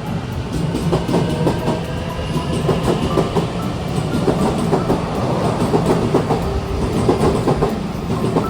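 Passenger train running on the rails, with a steady rumble and a hum under irregular clicking and clacking from the wheels over the track.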